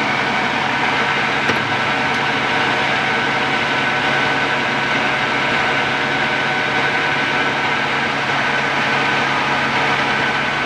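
Standard Modern 16-60 engine lathe running under power: a steady mechanical drone from the headstock and gearing, with a constant high whine over a low hum.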